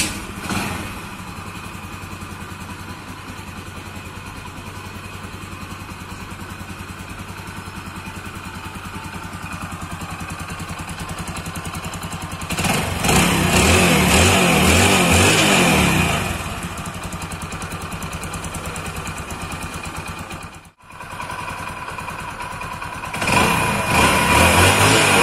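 Hero Honda Splendor's single-cylinder four-stroke engine, just after a full rebuild, running at a steady idle. It is revved up twice, for a few seconds about halfway through and again near the end.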